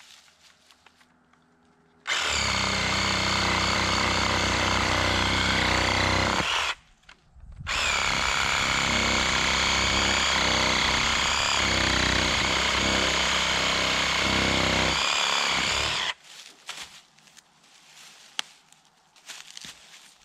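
Handheld cordless power tool running in two long runs, one of about four seconds and one of about eight, with a brief stop between them. The motor pitch wavers slightly as it works against the soil of the planting hole.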